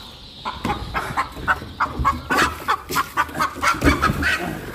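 Giriraj hen clucking in a quick run of repeated alarm calls, about three to four a second, as she is chased and grabbed. Two low thumps are heard, about two seconds in and near the end.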